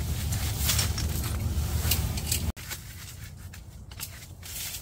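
Metal poles and leg pieces of a folding camp cot clinking and rattling, with fabric rustling, as the frame is fitted into the cot's sleeves. A low rumble under the first half cuts off abruptly about halfway, leaving the clicks over a quieter background.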